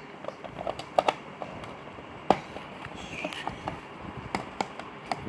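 Small plastic toy chair and playset pieces clicking and tapping as they are set in place: a scatter of light knocks, the sharpest about two seconds in.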